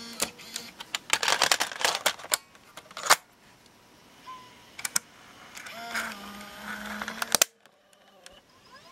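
Plastic clicks and clacks of a tape cassette being loaded into a Sony Digital8 camcorder's cassette compartment and the compartment being handled shut, the loudest clack about three seconds in. A short whir of the loading mechanism follows about six seconds in.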